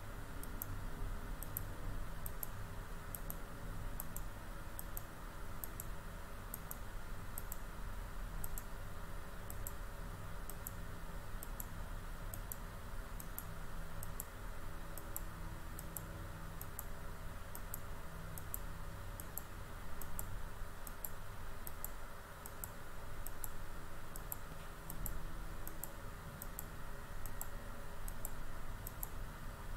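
Computer mouse clicking at an even pace, about one and a half clicks a second, each click stepping a number value up by one. A steady low hum runs underneath.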